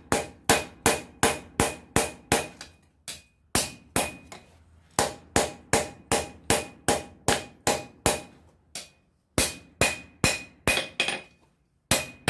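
Blacksmith's hammer striking a hot steel knife preform on an anvil, flattening the blade: steady blows about three a second, each with a short metallic ring, in runs broken by brief pauses.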